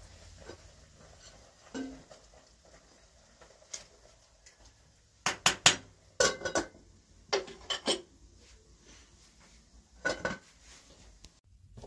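Aluminium cooking pot and its lid clinking and clanking as the lid is set on the pot. Several sharp metallic clinks come close together from about five seconds in, with one more near the end.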